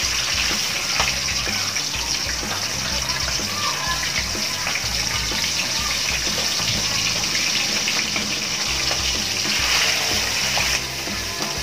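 Pieces of raw bangus (milkfish) sizzling and crackling in hot frying oil in a pan. The sizzle drops off sharply near the end.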